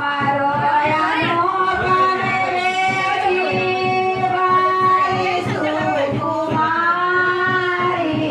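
A high female voice singing a song with long held, gliding notes over a steady beat.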